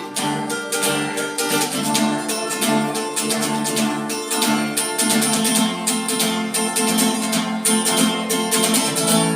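Acoustic guitar strumming chords in a steady rhythm, an instrumental song intro without vocals.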